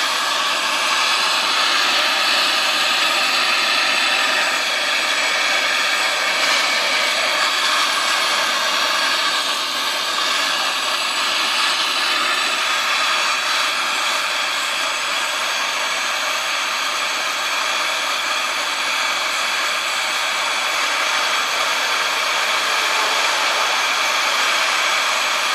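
Small hand-held gas-cartridge blowtorch burning steadily: a constant hissing rush of the flame as it heats a seized, rusted bolt to crack the rust free.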